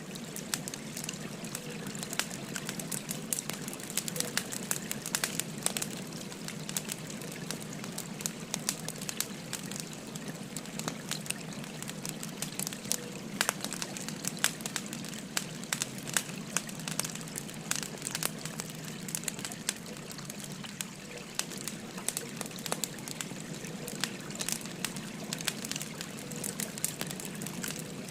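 Wood fire crackling, with frequent small sharp pops and snaps at irregular intervals, over the steady rush of a babbling river.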